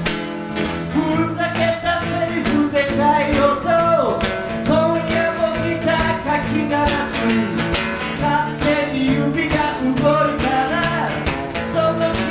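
Acoustic guitars playing a rock-and-roll lead break over steady rhythm strumming, with a quick downward slide about four seconds in.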